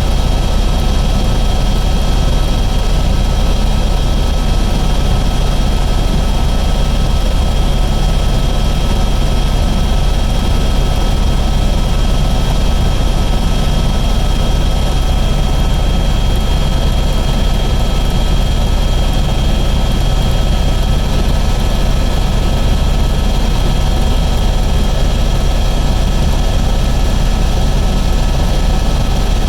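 Airbus H125 (AS350) single-turbine helicopter in steady flight: a constant deep rotor and engine drone with a thin, steady high whine at one pitch.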